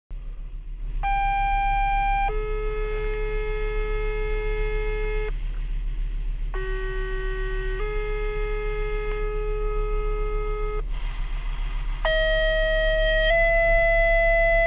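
Fire department two-tone sequential pager tones coming over the dispatch radio: three pages in a row, each a short steady tone of about a second that steps straight into a longer tone of about three seconds. A brief hiss of static falls between pages, and the third page's long tone is still sounding at the end. A low hum runs underneath throughout.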